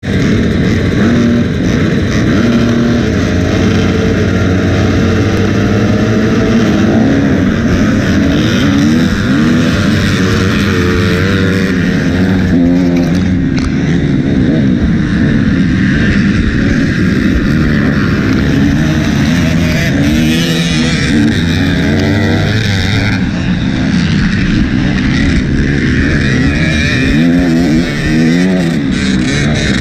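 Single-cylinder four-stroke engine of a 2008 Suzuki RM-Z250 motocross bike, heard up close from the bike itself, launching from the starting gate and pulling hard down the straight. Its revs climb and drop over and over with the gear changes, among the engines of a pack of other dirt bikes.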